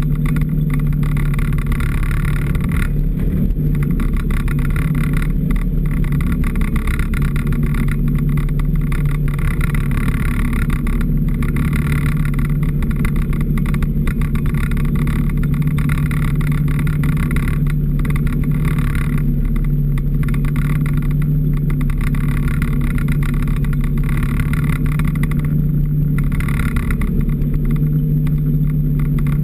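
Off-road vehicle's engine running at a steady cruising speed, its hum holding an even pitch as it travels a snow trail.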